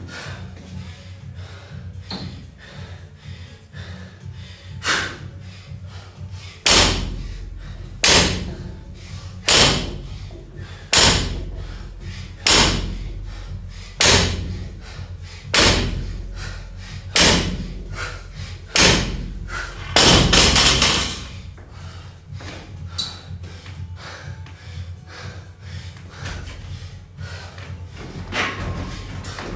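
Loaded barbell with rubber bumper plates hitting a wooden lifting platform on each deadlift rep: about ten sharp thuds at a steady pace of one every second and a half, the last one longer. After that only small knocks.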